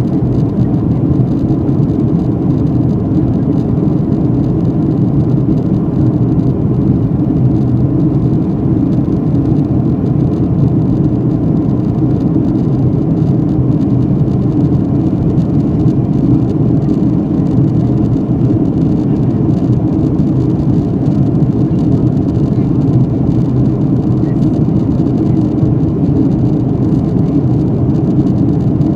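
Steady low roar of an airliner in flight heard inside the cabin, engines and airflow holding one even level throughout.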